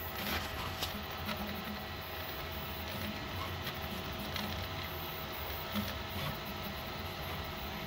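Prusa MK3S-type 3D printer (Caribou/Zaribo build) printing under Klipper firmware: a steady whir of its stepper motors and fans, with a few faint clicks. The printer is running untuned, with no input shaping set up yet.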